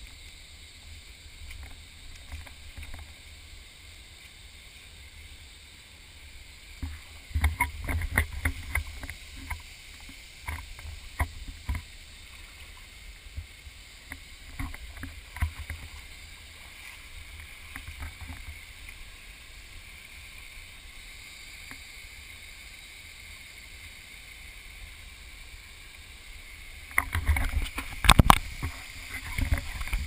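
Steady hiss of a shallow stream running over rock slabs, with scattered knocks and low thumps of footsteps and of the handheld camera being jostled. These come in clusters about a quarter of the way in, around the middle, and near the end.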